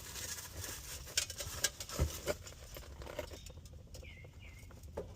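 Scattered clicks and knocks of a breaker bar and socket being worked on a seized downstream oxygen sensor in the exhaust, with a duller thud about two seconds in. The sensor is stuck tight and does not break loose.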